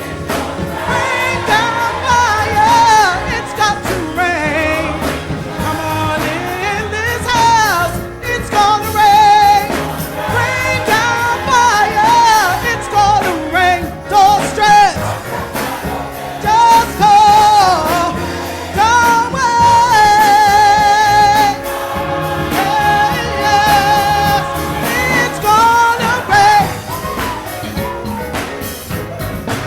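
Gospel song with a choir singing over instrumental backing, including a long held note with vibrato about twenty seconds in.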